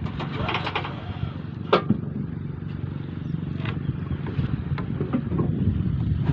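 Small outrigger boat's engine running with a steady low drone, getting louder near the end. A sharp knock comes about two seconds in.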